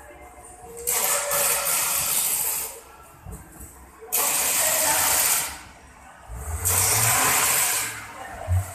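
Three bursts of hissing, each lasting a second or two, with short pauses between them; a low hum comes in under the third burst, and there is a short low thump near the end.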